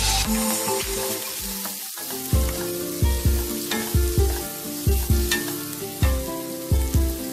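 Chopped onions sizzling in hot oil in a nonstick pan, stirred and scraped with a wooden spatula. From about two seconds in, background music with a steady low beat plays underneath.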